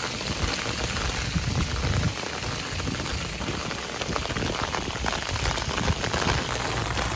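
Heavy rain pouring down, a steady dense hiss of drops splashing on wet ground.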